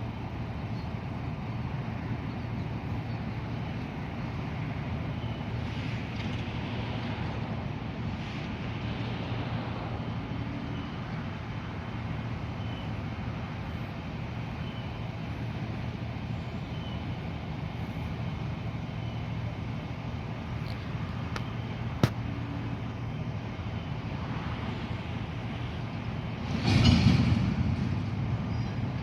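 Heavy diesel engine running steadily with a low hum, with one sharp click past the middle and a louder rushing surge near the end that fades over a couple of seconds.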